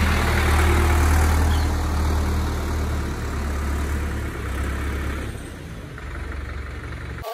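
Indo Farm 3065 DI tractor's diesel engine running steadily as the tractor drives off, fading over the last couple of seconds as it moves away.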